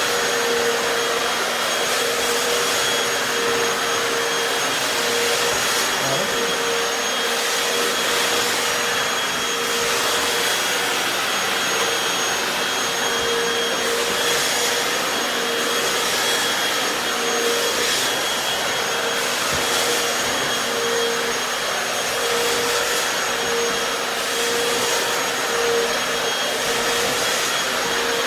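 Hoover FloorMate Deluxe wet floor cleaner running in wash mode, its suction motor giving a steady whine with the spin scrub brushes turning. Brief swishes recur as it works over the floor.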